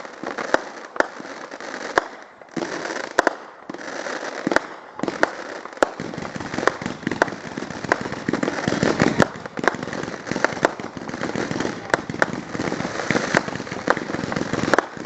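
Consumer fireworks going off: sharp bangs spaced apart at first, then from about six seconds in a dense run of reports over a continuous crackle.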